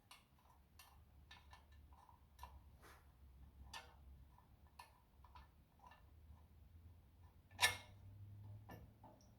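Faint, irregular metal clicks and taps from bolts and a hand tool being worked into a tractor's fan shroud, with one louder knock about seven and a half seconds in.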